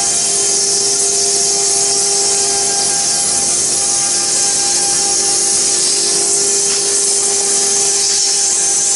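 CNC stone router cutting marble: a steady, loud grinding hiss of the bit in the stone over a constant whine from the spindle.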